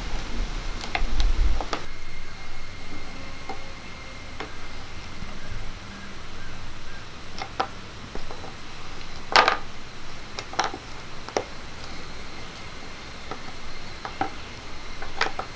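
A broad metal knife blade knocking and scraping on a wooden board as a slab of jaggery-peanut candy is cut into squares and the pieces are lifted. The knocks are scattered and irregular, the loudest about nine seconds in.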